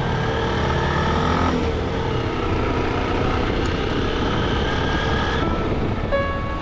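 Motorcycle riding at road speed: steady engine drone and wind rush, heard from the rider's own bike.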